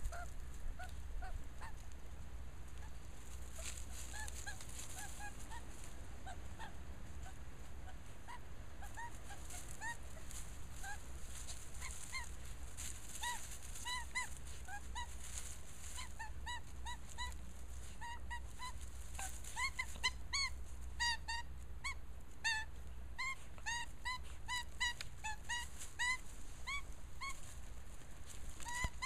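Australian magpie giving short, nasal honking squawks, a few at first and then several a second through the second half, with rustling in dry leaf litter.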